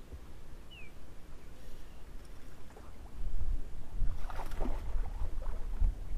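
Strong wind rumbling on the microphone while waves slap against a bass boat's hull. It gets louder and splashier about four seconds in.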